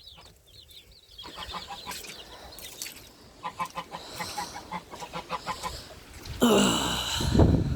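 Chickens clucking in short, repeated calls, then a loud burst of noise lasting about a second near the end.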